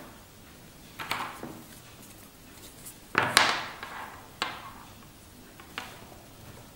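Light knocks and clacks of a steel-buckled canvas watch strap and a watch case being handled and set down on a wooden tabletop: one about a second in, a louder close pair about three seconds in, then two fainter ones.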